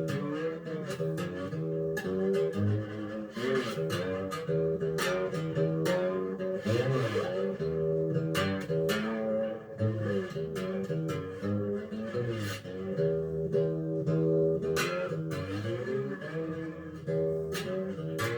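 Single-string diddley bow with a lid-mounted piezo pickup, played amplified with a glass slide: plucked notes that glide up and down in pitch.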